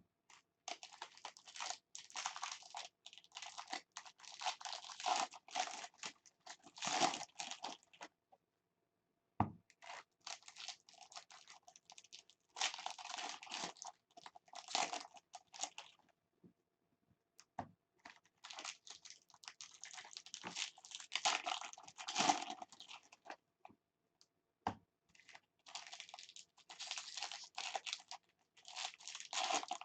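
Foil wrappers of baseball card packs crinkling and tearing as packs are opened and the cards handled, in four bursts of several seconds each with short pauses, a few single knocks in between.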